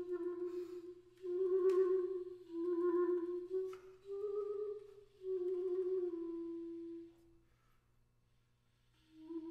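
Solo B-flat clarinet playing a run of about five held notes, several with a quick wavering in pitch, in short breaths. Then it stops for about a second and a half and one last short note sounds near the end.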